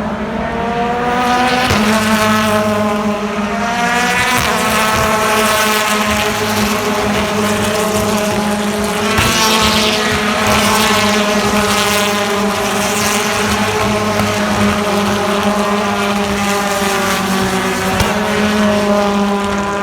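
BTCC touring cars' 2.0-litre turbocharged four-cylinder engines at racing speed, revs climbing and dropping repeatedly through gear changes.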